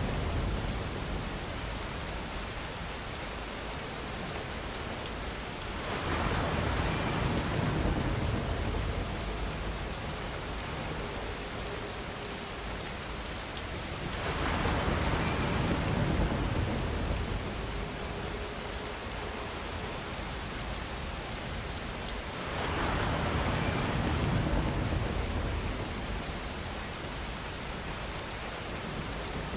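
Steady rain with wind, swelling louder three times, each swell lasting about three seconds and carrying a low rumble of distant thunder.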